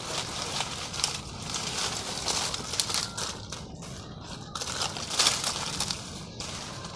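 Dry sticks, twigs and dead leaves crackling and crunching in irregular bursts as they are pulled up and gathered by hand into a bundle for firewood.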